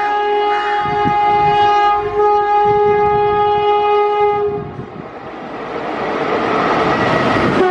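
WAP-7 electric locomotive's horn sounding one long steady blast as the train approaches at speed, stopping about four and a half seconds in. Then the rushing rumble of the oncoming train grows louder.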